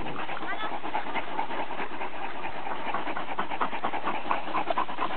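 Dogs panting close by, a quick rhythmic huffing that speeds up in the second half. A short high squeak comes about half a second in.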